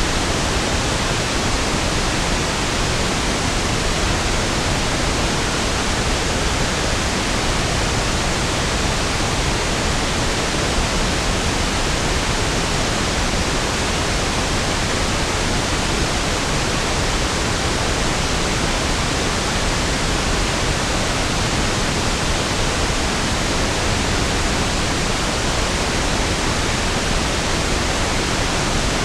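Steady pink noise: an even, smooth hiss with equal energy per octave, unchanging throughout.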